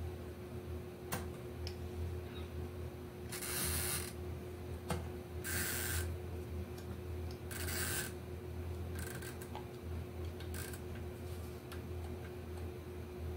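Typewriter ribbon and spools being handled with rubber-gloved hands: scattered small clicks and three short rustling scrapes about two seconds apart, over a steady low hum.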